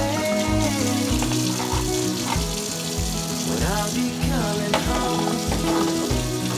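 Kitchen tap running onto a salad spinner lid as it is rinsed in a stainless steel sink, a steady hiss of water. Background music with a steady beat plays throughout.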